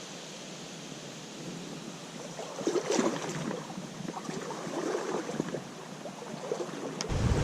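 A small creek running with a steady hiss of water. From about two and a half seconds in come irregular rustles and crackles, and just before the end a low rumble of wind on the microphone sets in.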